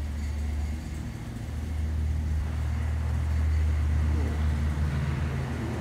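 A motor vehicle engine idling: a steady low hum that grows louder about two seconds in.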